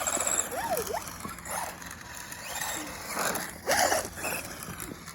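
Lit sparklers fizzing and crackling. Short sounds slide quickly up and down in pitch over it, and there is a louder burst of crackle a little past the middle.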